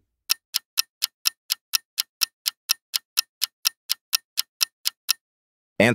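Countdown timer sound effect: evenly spaced clock ticks, about four a second, stopping about five seconds in.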